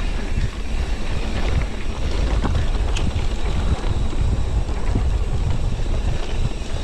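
Wind buffeting the microphone of a camera on a mountain bike riding fast down a dirt trail, with tyre rumble and a few sharp knocks and rattles from the bike over bumps, one clear one about three seconds in.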